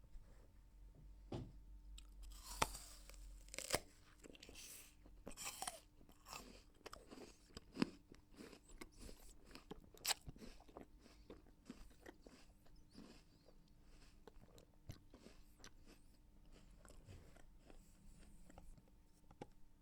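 A person chewing crisp apple, with wet crunches in quick succession. The loudest crunches fall in the first half, and the chewing goes on softer and steadier toward the end.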